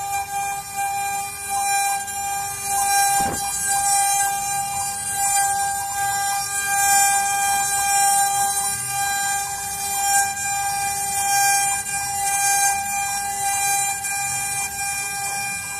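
CNC wood router's spindle whining at a steady pitch as its bit carves a wooden relief panel, with the hiss of the cut above it. One sharp click about three seconds in.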